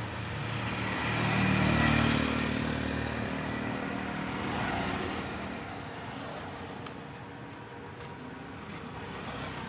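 A motorbike engine passing close by, growing louder to a peak about two seconds in and then fading away, with softer street and road noise after it.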